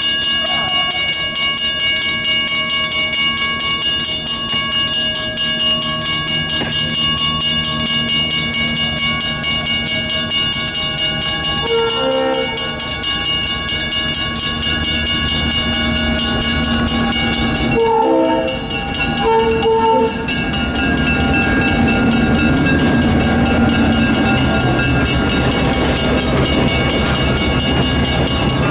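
WCH mechanical railroad crossing bells ringing steadily. A train horn sounds a few short blasts around the middle. From about two-thirds in, a diesel locomotive and passenger cars rumble through the crossing.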